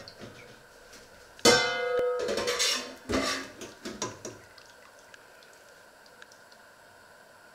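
Stainless steel pot lid set down with a sudden clang that rings for under a second, followed by a second metallic clank and a few lighter knocks of metal tongs against the pot.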